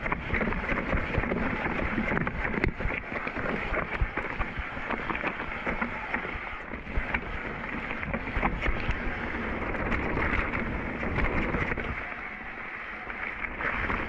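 Rocky Mountain Thunderbolt mountain bike rolling fast down a dirt trail: steady tyre noise on dirt with the bike knocking and rattling over bumps, and wind buffeting the microphone. It eases off for a moment near the end.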